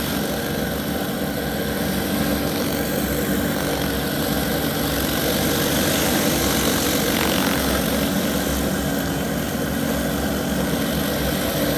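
Hot-water pressure washer at work: a Whisper Wash Classic surface cleaner's spinning spray bar hissing steadily on concrete over the constant drone of the rig's Kubota diesel engine.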